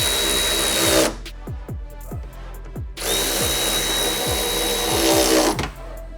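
Cordless drill with a 10mm socket driving the taillight bolts back in: two runs of the motor's steady whine, the first about two seconds, the second a little longer, starting about three seconds in.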